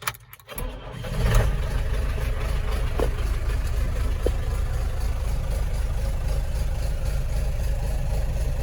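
John Deere 6300 tractor's four-cylinder diesel engine starting: a few clicks, then it cranks and catches about half a second in, rises briefly in speed, and settles into a steady idle.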